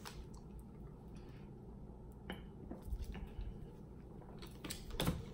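Close-miked eating sounds: a person chewing rotisserie chicken and smacking his lips, with scattered small wet clicks and a louder cluster of smacks near the end.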